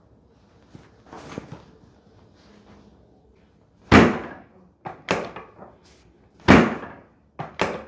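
Sharp, loud thumps during a chiropractic adjustment: a big one about four seconds in and another about two and a half seconds later, each with a shorter knock or two after it.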